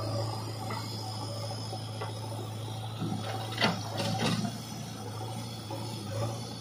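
JCB 3DX backhoe loader's diesel engine running steadily with a low hum while the backhoe arm works a bucket of soil over a tractor trailer, with a few sharp clunks and rattles about halfway through.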